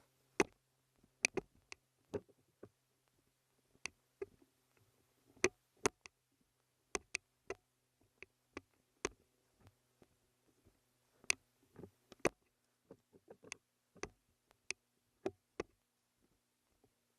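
Airsoft guns firing scattered single shots: about thirty sharp clicks and cracks at irregular intervals, some close and loud, others faint.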